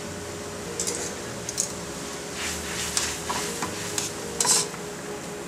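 Thin wheat noodles boiling in a wok of water and stirred with metal tongs: a steady bubbling hiss, with scattered scrapes and clicks of the tongs against the wok from about a second in, the loudest about a second before the end.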